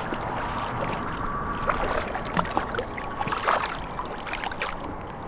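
River water flowing and lapping around a wading angler, with a few short splashes as a hand reaches into the water to land a trout; the biggest splash is about three and a half seconds in.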